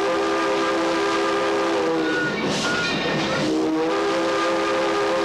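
Steam locomotive's chime whistle blowing a chord of several notes in two long blasts with a break of about a second between them, over the running noise of the locomotive. It is sounded for a 'W' whistle post, the signal for a grade crossing ahead.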